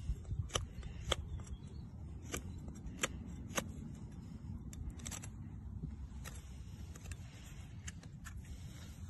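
Steel blade of a Daniele Mauro First Blood survival knife shaving curls off a wooden stick: a series of short, sharp scraping strokes, roughly one every half second, growing fewer after about six seconds.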